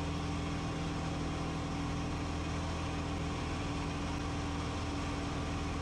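Steady drone of an RV-14's engine and propeller heard inside the cockpit in flight: an even hum with several constant low tones and no change in pitch.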